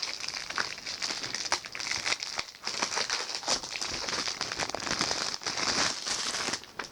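Plastic shrink-wrap crinkling and crackling as it is peeled and torn off a Blu-ray case, a dense run of small irregular crackles.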